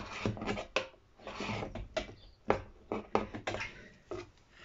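Scissor blades scraping round the edge of a freshly drilled hole in a plastic water tank, trimming off the burr: a run of sharp clicks and knocks with short scraping strokes.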